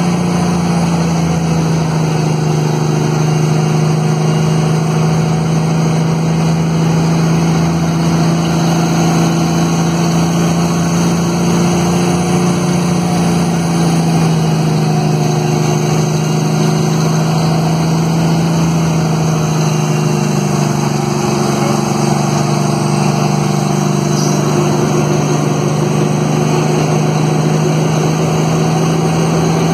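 Cummins diesel of a Kenworth T800 tractor-trailer running on the engine (Jake) brake down a long mountain grade, a loud steady drone holding an even pitch, creeping slightly higher near the end.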